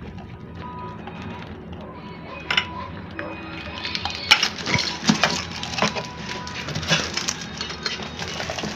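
Small Hello Kitty condiment containers and pieces clinking and knocking together as they are handled and moved. There are a few clicks, then a busy run of sharp clinks from a little under halfway in.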